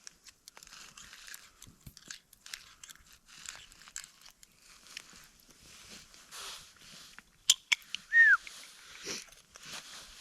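Crunching steps in snow, about two a second, with a few sharp clicks and one short falling squeak about eight seconds in.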